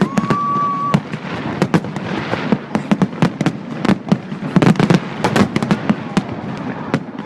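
Fireworks display: a rapid, irregular volley of sharp bangs and pops, densest about halfway through. A steady high whistle sounds for about the first second.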